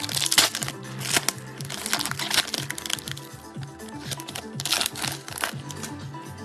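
Foil wrapper of a Mosaic football trading-card pack being torn open and crinkled, in several short spells of crinkling, the loudest in the first second and again about five seconds in. Background music plays steadily underneath.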